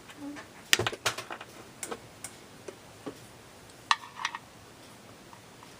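Irregular sharp clicks and taps, a tool working at the plastic of a small speaker box, with a couple of short squeaks about four seconds in.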